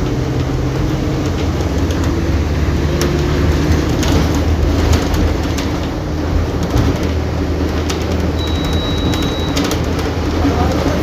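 Mercedes-Benz OF-1722M bus's 218 hp diesel engine running steadily, with scattered clicks and rattles. A short high-pitched beep sounds about two-thirds of the way through.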